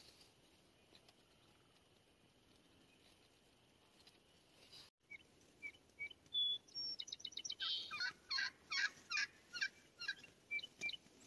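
Wild turkey tom gobbling: a loud, fast rattling run of notes lasting about three seconds in the second half, after a few short high chirps.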